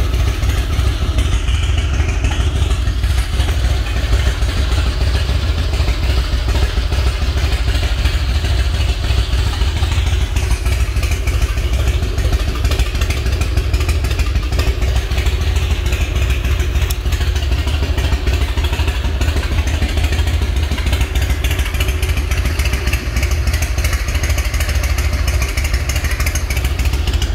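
2001 Harley-Davidson Night Train's Twin Cam 88B V-twin idling steadily through aftermarket Vance & Hines exhaust, a loud, low, even rumble.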